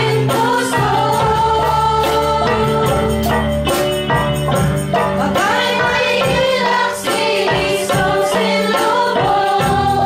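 Music with singing over sustained chords and a steady beat of light percussion.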